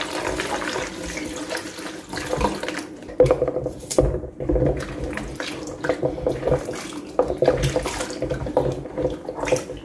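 Water poured from a plastic jug into a plastic bowl, then plantains washed by hand in it: sloshing and splashing water with irregular knocks of the fruit against the bowl.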